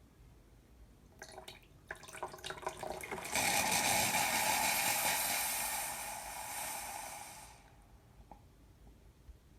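Capsule espresso machine brewing: after a few sputtering crackles, the pump pushes water through the pierced capsule and coffee hisses and pours into the cup for about four seconds before tapering off. This shows the repaired machine now piercing the capsule and brewing.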